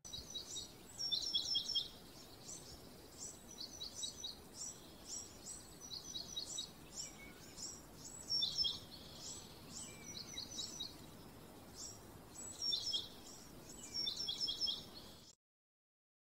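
Birds chirping: short, high, down-sweeping chirps in quick runs of three to five, repeated every second or so over a faint steady outdoor hiss. The sound cuts off suddenly about a second before the end.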